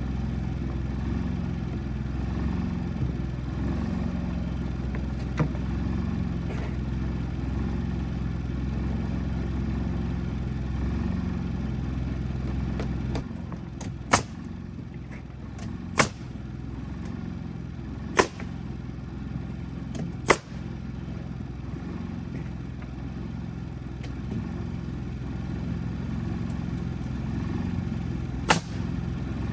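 An engine running steadily, its hum dropping lower about halfway through. Then come five sharp knocks, four of them about two seconds apart and one near the end.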